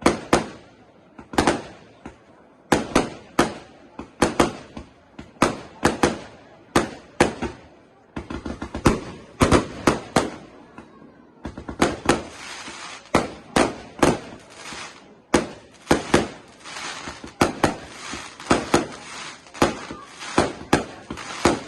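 Fireworks display: aerial shells going off in a rapid run of sharp bangs, about one or two a second. From about halfway through, a steady hiss fills the gaps between the bangs.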